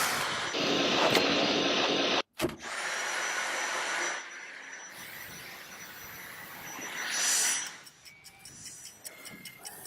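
Cordless stick vacuum motor running with a steady high whine and airflow rush; it cuts out abruptly about two seconds in and starts again, drops to a lower level after about four seconds, swells briefly near the end, then gives way to faint ticking.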